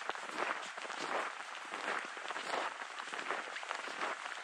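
Footsteps crunching in snow at a steady walking pace, each step a short crackling crunch.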